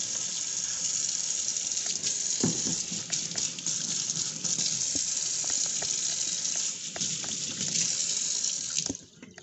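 Kitchen mixer tap running steadily into a metal sink while hands are soaped and rubbed under the stream. The water cuts off suddenly near the end.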